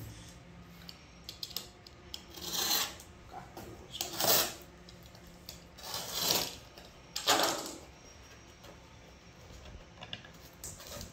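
Snap-off utility knife slicing through packing tape on a cardboard box: four cutting strokes, each about half a second, a second or two apart, then quieter handling of the cardboard near the end.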